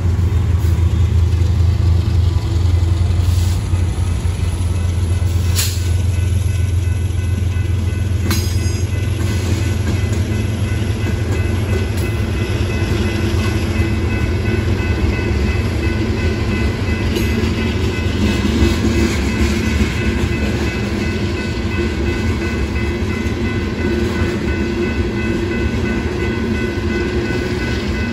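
A Union Pacific freight train rolling past at close range. The deep diesel rumble of a passing locomotive is heaviest in the first few seconds, then comes the steady rumble of loaded rock cars' wheels on the rails.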